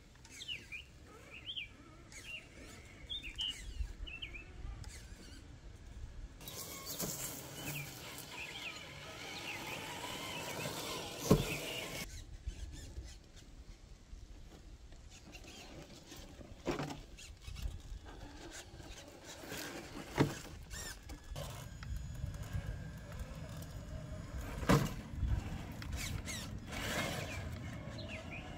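Traxxas TRX4 Bronco RC crawler's small electric motor and gears whining as it crawls over rock, with several sharp knocks as it bumps the stone.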